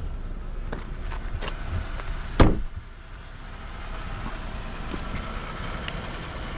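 A car door shut with one loud thump about two and a half seconds in, over a low steady rumble.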